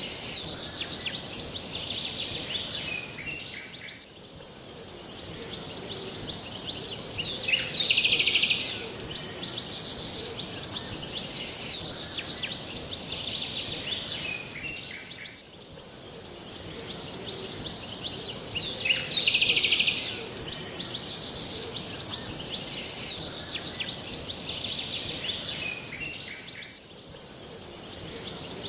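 Background nature ambience of birds chirping over a steady hiss, played as a loop that repeats about every eleven seconds, with a louder flurry of chirps in each pass.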